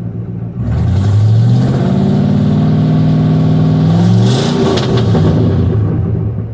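Square-body GMC's 454 big-block V8 idling, then revved sharply about half a second in, held at higher revs for about three seconds, with a brief crackle as the revs come down, and settling back to idle near the end. The engine is running a lot better after the misfire hunt.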